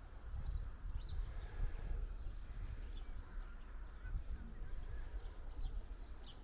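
Wind buffeting the microphone in an uneven rumble, with faint short bird calls above it.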